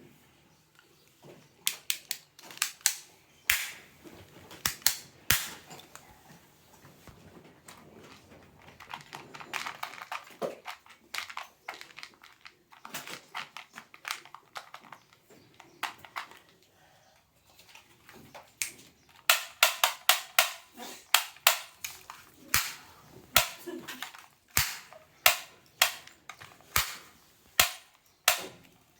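Plastic toy guns clicking and snapping as they are worked and fired: sharp clicks in scattered groups, then a dense run of rapid clicks in the second half.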